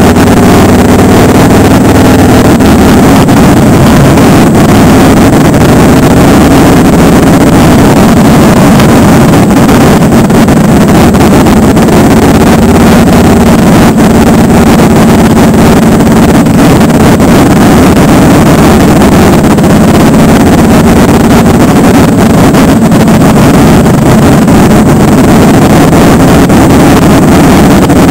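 Motorcycle engine running at a steady cruise, close to the microphone, mixed with the engines of a group of touring motorcycles riding together. The engine note rises and falls slightly.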